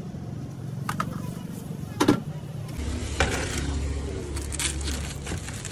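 Street background with a motor vehicle running close by for a few seconds in the second half, over a steady low hum. One sharp knock about two seconds in.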